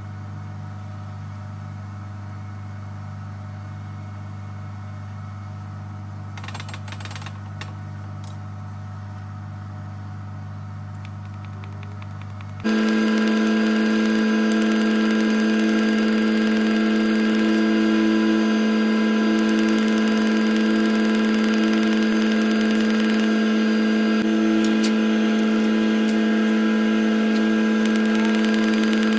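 A steady low hum, then about 13 seconds in a sudden, much louder steady buzz and hiss from a TIG welding arc welding a steel gusset onto a truck spindle.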